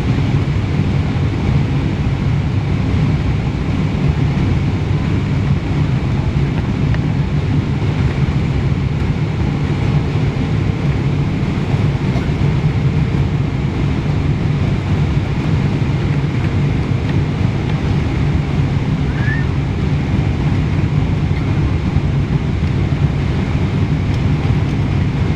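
Steady jet engine and airflow noise inside an airliner cabin, an even low rumble and rush with no change in level.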